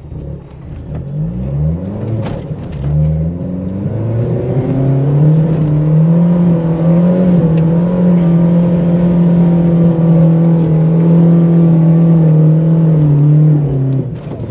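A 4x4 SUV's engine revving up in a few rising sweeps, then held at steady high revs under full load for about nine seconds as it tries to climb a sand dune. It drops away sharply near the end.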